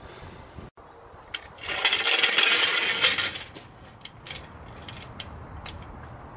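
Metal tools and parts clattering during wheel work: a dense metallic rattle lasting about a second and a half, then a scatter of light clicks and clinks.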